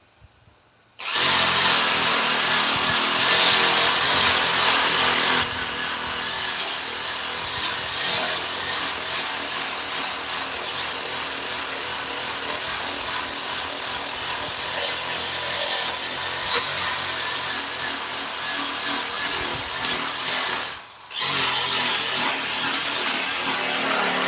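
Handheld power tool running against wood. It starts about a second in, drops a little in level a few seconds later, stops briefly near the end and starts again.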